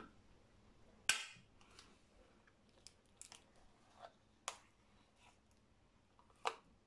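Table knife scraping margarine out of a plastic tub and into a Thermomix steel mixing bowl, making a scattering of soft clicks and taps. The sharpest comes about a second in and another near the end.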